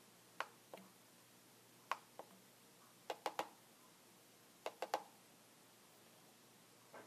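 Computer keyboard keys pressed and tapped slowly, about ten sharp separate clicks in twos and threes with short pauses between.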